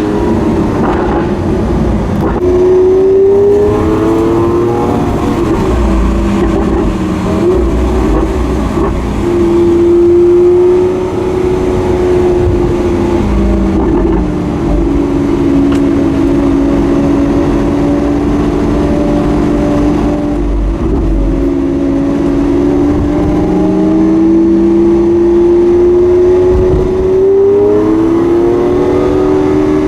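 Lamborghini Aventador S's 6.5-litre V12 through its stock exhaust, heard from inside the car while driving. The engine pitch climbs in a few seconds in, holds fairly steady at cruising revs through the middle, and climbs again near the end.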